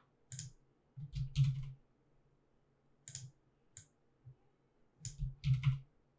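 Clicks and key presses on a computer keyboard and mouse, single or paired strokes coming at irregular intervals as keyframes are selected and moved in animation software.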